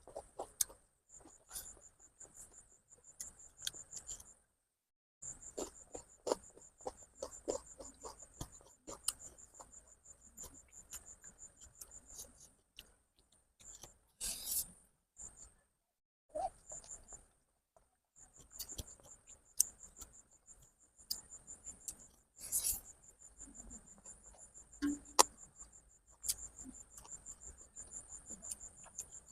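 Crickets trilling in a steady high pulsing chirr that breaks off a few times, with scattered short clicks and smacks of someone eating noodles close to the microphone.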